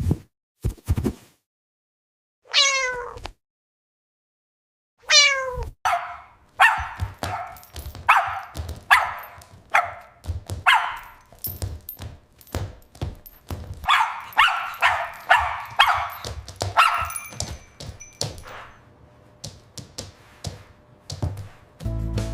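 An animal calling again and again: two drawn-out cries that fall in pitch, then a run of short, sharp calls about one a second, coming faster for a few seconds before they die away.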